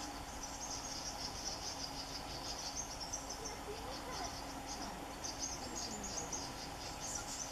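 Chorus of insects: a shrill, high-pitched trill that swells and breaks off in uneven stretches. A few faint bird calls come about three to four seconds in.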